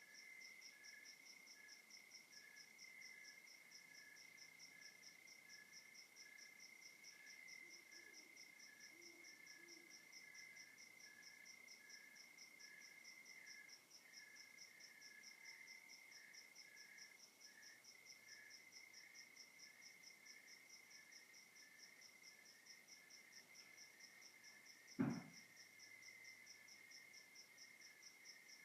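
Faint night chorus of crickets and other insects: one steady high trill, a faster pulsing trill above it, and a row of short chirps repeating a little over once a second. Near the end, a single sudden knock.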